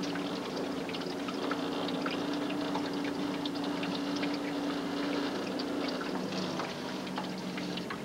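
A small boat's outboard motor running steadily, with water splashing and trickling along the hull; about six seconds in its hum drops to a lower pitch.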